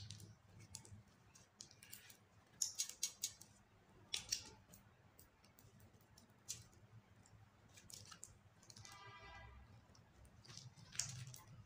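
Clear glitter slime being kneaded and squeezed by hand: quiet sticky crackles and clicks in short clusters, loudest a few seconds in and near the end, with a brief buzzy squelch about nine seconds in.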